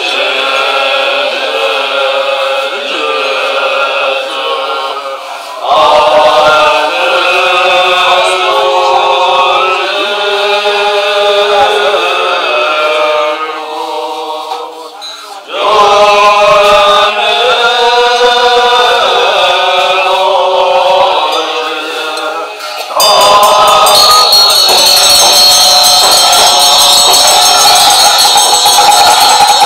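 A group of Tibetan Buddhist monks chanting a liturgy together, in long phrases with short breaks between them. About 23 seconds in, the chant gives way to ritual instruments: hand cymbals and bells ringing together.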